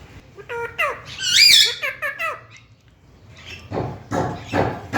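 Green parrot giving a run of shrill, wavering squawks in the first couple of seconds, then a burst of lower, voice-like chatter near the end.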